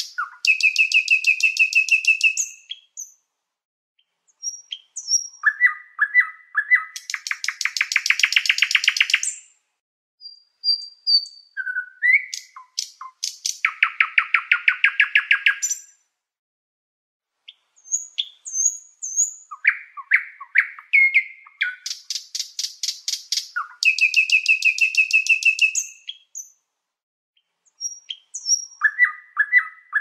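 A songbird singing: fast trills of rapid pulses, each lasting a second or two, alternating with short chirps and slurred whistled notes, with a few brief pauses.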